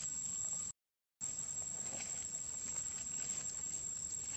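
Insects chirring in a steady high-pitched drone, broken by a brief total dropout about a second in.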